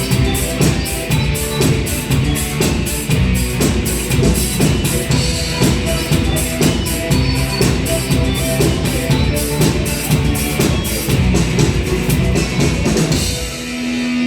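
Rock band playing the song's instrumental outro: a steady drum-kit beat with bass and guitars. Near the end the drums stop and a single held chord rings on.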